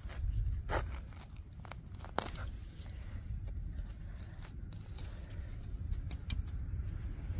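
Hands digging in loose soil and pulling at grass roots: scattered crunching and tearing noises with a few sharp crackles, over a low steady rumble.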